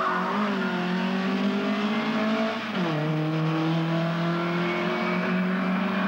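Ford Escort rally car's 1600cc stage 3 built engine pulling hard, its note climbing slowly. A quick gear change about two and a half seconds in drops the pitch, and the engine then pulls on again.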